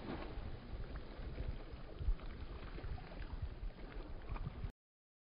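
River water splashing around a swimmer in rough water beside an inflatable raft, with wind rumbling on the microphone and a low thump about two seconds in. The sound cuts off abruptly near the end.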